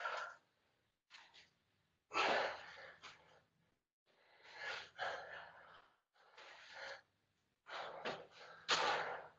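A woman breathing hard from exertion: a series of audible breaths, roughly one a second, with short silences between.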